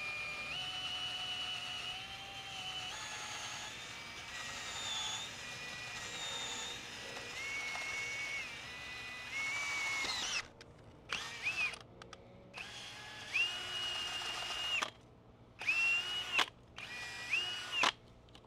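DeWalt cordless drill spinning a spiral garden auger bit down into soil. For about ten seconds the motor whine runs steadily and shifts up and down in pitch; after that the drill runs in several short bursts, each winding up quickly and then stopping.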